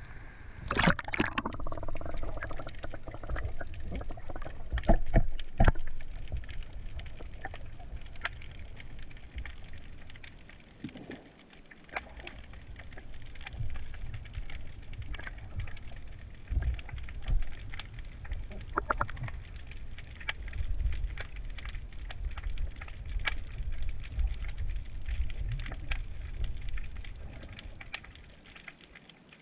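Underwater sound heard through a submerged GoPro's waterproof housing: a low, muffled rumble of moving water with scattered clicks and knocks throughout.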